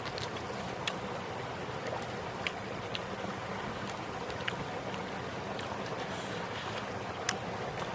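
Mouth sounds of someone eating: short wet clicks and smacks of chewing, scattered irregularly, over a steady hiss of wind on the microphone.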